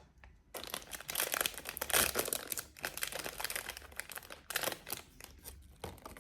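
Plastic packaging crinkling and tearing as a small toy figure is unwrapped by hand, in an irregular run of crackles that is loudest about two seconds in.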